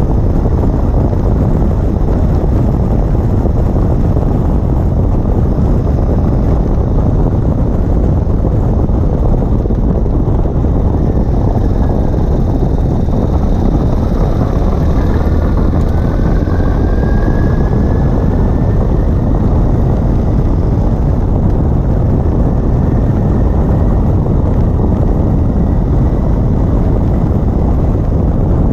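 Ural Gear Up sidecar motorcycle driving on pavement, heard from beneath the machine: a loud, steady rush of wind buffeting and tyre and road noise, with the running gear underneath. A faint rising whine comes in around the middle.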